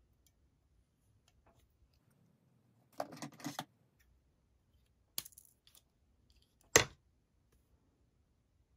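Small hard-plastic handling clicks on a tabletop as a clear plastic spool of nail wire and a gel polish bottle are handled: a quick rattle of clicks about three seconds in, a single click a couple of seconds later, and one sharp, louder click near the end.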